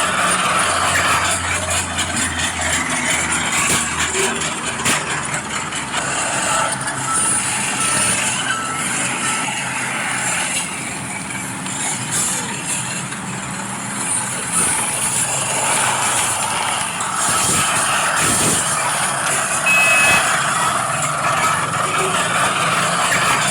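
Radio-controlled scale model excavator and bulldozer working, their small electric motors and gears running steadily, with a short run of evenly spaced beeps about seven seconds in.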